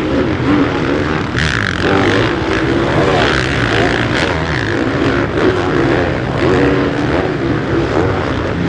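Motocross bike engines revving hard and easing off in turn, the pitch rising and falling with each throttle change as the bikes race round the track.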